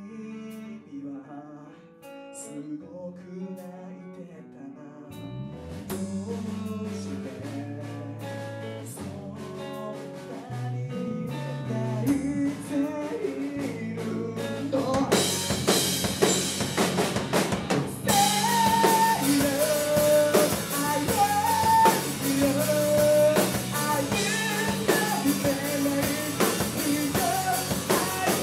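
Live rock band playing: a quiet guitar intro, then bass and drums join about five seconds in, and the full band comes in loud around fifteen seconds, with a voice singing over it.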